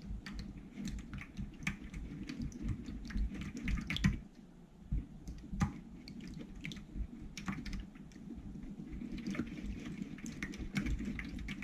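Glue and borax solution being stirred in a container: irregular wet clicks and taps of the stirring utensil against the sides, as the mix starts to thicken into slime.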